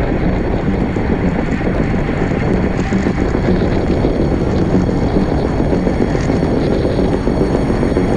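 Steady, loud wind noise buffeting the microphone of a camera carried by a cyclist riding at race speed, with rolling road noise beneath it.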